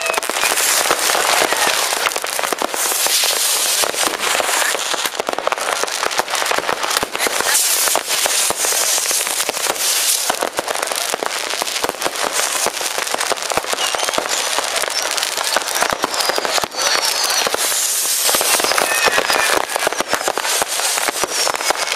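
Many fireworks and firecrackers going off at once in a dense, unbroken crackle of bangs and pops, with a few whistles from rockets now and then.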